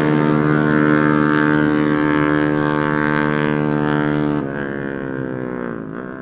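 Racing underbone motorcycle engine held at steady high revs, then dropping in level and pitch about four seconds in and fading away as it passes.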